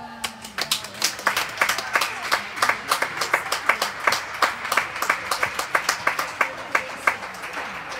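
A small crowd of spectators clapping in a steady run of distinct claps, about five a second, tapering off near the end: applause for the end of a padel match.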